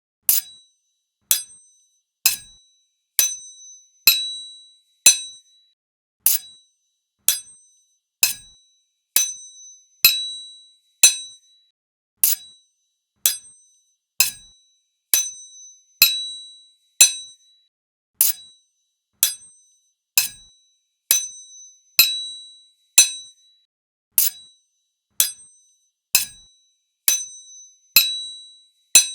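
Two sword blades striking each other, one sharp metallic clash about once a second, each leaving a short high ring; some strikes ring on longer than others.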